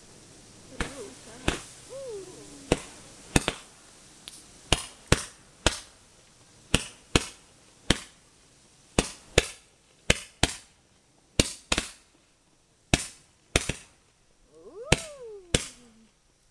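Roman candle firing, a series of about twenty sharp pops at uneven intervals as it launches its stars one after another.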